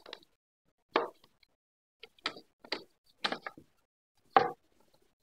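A handful of short wooden knocks and clunks as a wooden 90-degree corner jig and MDF panels are handled on a workbench. There are about six separate knocks; the loudest comes about a second in and another near the end.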